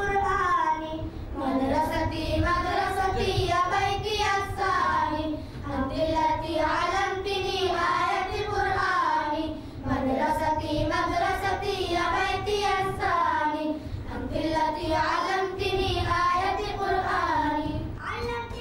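A group of boys singing together in unison, a melodic chant in phrases of a few seconds each with brief breaths between them.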